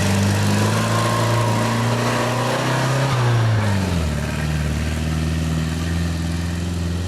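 Off-road 4x4 vehicle's engine running under load, its revs climbing slightly and then dropping sharply about three and a half seconds in, then running steadily.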